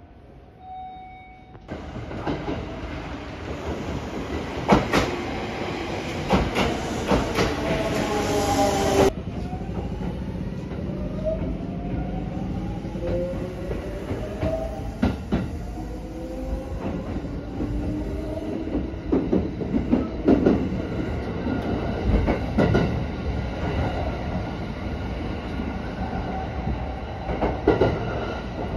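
Kintetsu electric train running, with the whine of its traction motors gliding down in pitch for the first several seconds as it slows. After a cut the whine rises in pitch as the train picks up speed, over a steady rumble and clicks of the wheels on the rail joints.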